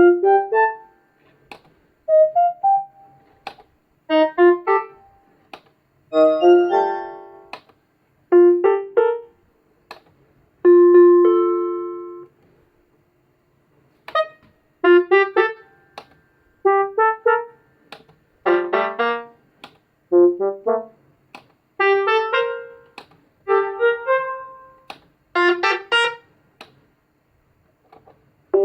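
Yamaha YMK-80 electronic marching keyboard playing short groups of notes and brief runs, each fading away before the next, with one longer chord held for over a second near the middle.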